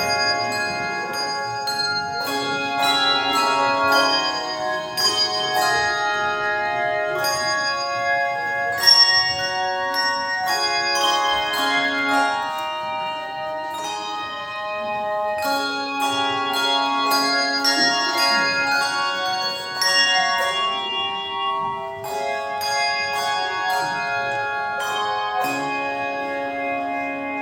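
A bell ensemble playing a melodic piece: many tuned bells struck together in chords and runs, each note ringing on.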